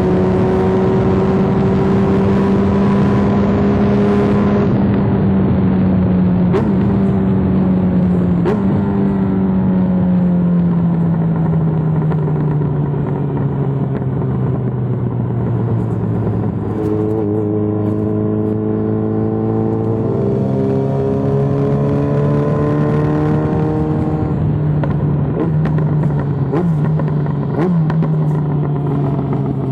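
Yamaha XJ6N's inline-four engine through an Arrow full exhaust. The engine speed sinks slowly over many seconds, picks up again about two-thirds of the way through, then sinks once more. As it slows, a few sharp exhaust pops crack out on the overrun.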